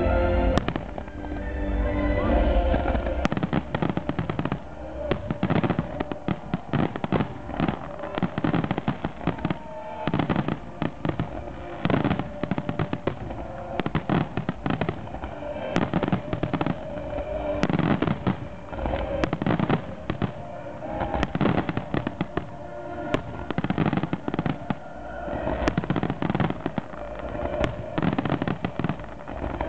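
Fireworks display: shells bursting in a rapid, nearly unbroken series of bangs and crackles, with music playing underneath.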